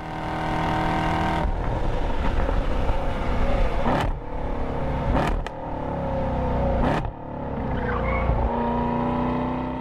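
Car engine running hard under load, with three brief breaks about four, five and a half and seven seconds in.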